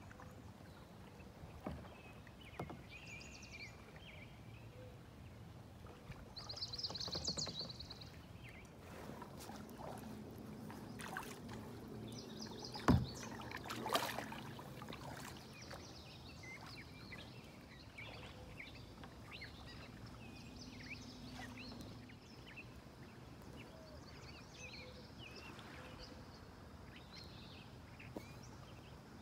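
Kayak paddles dipping and splashing on calm river water, with birds chirping now and then. About halfway through there is a sharp knock, then a louder splash.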